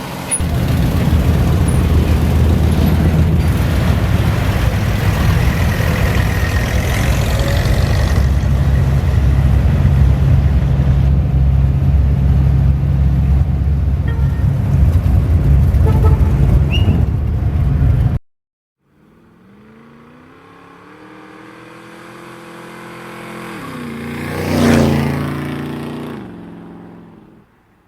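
Car engine running loud and close with a deep, steady rumble, cut off abruptly about two-thirds of the way through. Then a vehicle approaches, passes close with its pitch dropping, and fades away.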